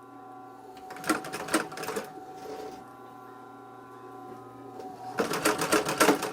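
Industrial leather sewing machine stitching in two short runs, about a second in and again near the end, its needle going up and down in a fast, even clatter over the steady hum of the running machine.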